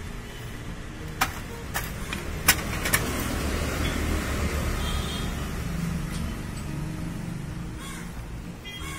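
Four sharp metallic clicks within the first three seconds as tools and small parts are handled at the contact-breaker point housing of an old Royal Enfield Bullet engine. They are followed by a rustling, rubbing noise of a cloth wiping the parts, over a low steady rumble.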